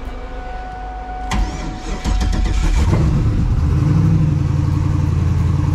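Starter cranks briefly, and the twin-turbo LS V8 swapped into a Ford Mustang fires right up about two seconds in. It then settles into a steady idle.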